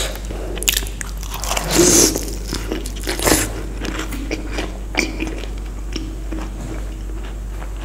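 Close-up sound of a person biting and chewing crunchy food: crisp crackling crunches, loudest about two seconds in, easing to softer chewing clicks later on.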